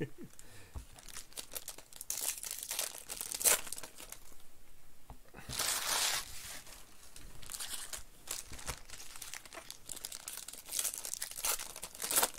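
Foil wrappers of Panini Prizm baseball card packs being torn open and crinkled by hand, in several irregular bursts.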